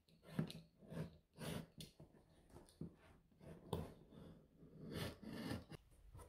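A box cutter slicing through the packing tape on a cardboard box: a series of short, irregular, scratchy cutting strokes.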